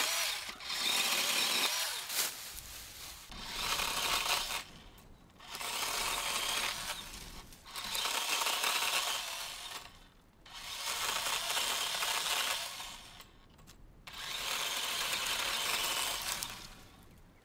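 DeWalt 20V Max cordless pole saw, a battery-electric chainsaw head, cutting through a tree limb. The chain runs in a series of runs of about two seconds each, with brief pauses between them, and stops just before the end.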